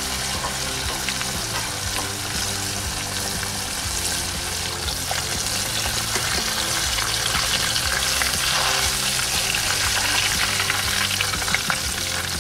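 Floured whiting pieces deep-frying in hot oil in a saucepan: a steady crackling sizzle, with a metal ladle and then a wire-mesh strainer stirring through the oil.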